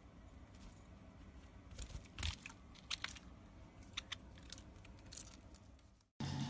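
A parrot crunching something with its beak: a few separate sharp crunches, the loudest about two seconds in, over a quiet background. The sound cuts off just before the end.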